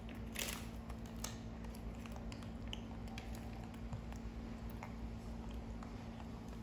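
Scattered light clicks and taps, as of small things being handled, over a steady low hum.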